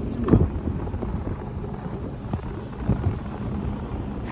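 Wind rumbling on the microphone under a steady high-pitched insect buzz, with a few soft knocks, the loudest about half a second in.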